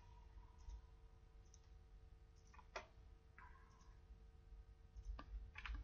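A few faint computer-mouse clicks over a low room hum, one about three seconds in and two more near the end.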